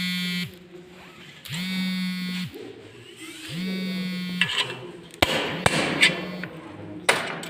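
Electrical buzzing in repeated bursts about a second long, three times, roughly two seconds apart, then a run of sharp metallic clicks and knocks.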